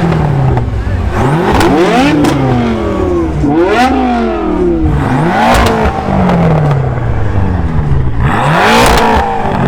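BMW M-car engine free-revved in about five sharp blips, each rising quickly and then falling slowly back toward idle, with brief crackles at the top of some revs.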